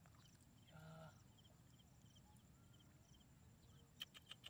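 Near silence: faint outdoor ambience with small high chirps repeating, a brief pitched call about a second in, and a few sharp clicks near the end.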